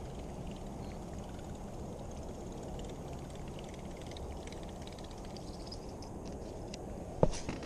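Baitcasting reel cranked steadily during a retrieve, with faint clicking over steady low background noise, and a sharp knock near the end. The angler says the reel sounds like it is ripping itself up inside.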